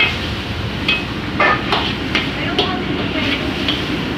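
Stir-frying in a wok on a commercial gas wok burner: the burner runs with a steady noise while a metal ladle clanks and scrapes against the wok, several sharp knocks through the stretch.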